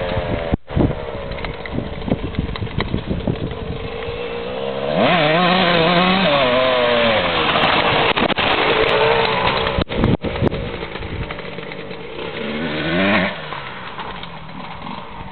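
1994 Honda CR125 two-stroke dirt bike engine revving. About five seconds in a close rev rises sharply and holds high for a few seconds, and a second rev rises again near the end.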